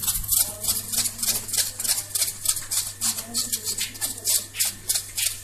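Stainless-steel mesh sieve being shaken by hand to sift pounded rice flour onto a brass plate. It makes a quick, even rasping shake, about five strokes a second.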